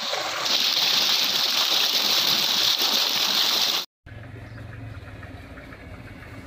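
Water gushing from a metal outlet pipe and splashing into a brick tank, a loud steady rush that cuts off suddenly about four seconds in. A much quieter low steady hum follows.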